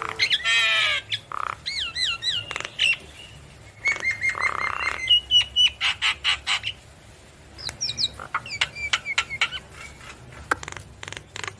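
Javan myna singing a varied song of buzzy rasping notes, gliding whistles, a harsh squawk and runs of sharp clicks, with a short lull a little past the middle.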